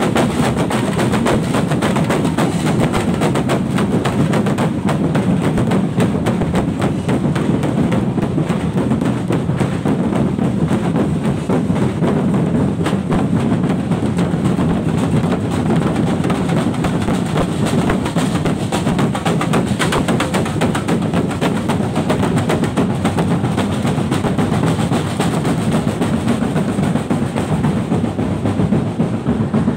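A street drum band playing loud, fast, continuous drumming with sticks on large painted barrel drums and snare-type drums.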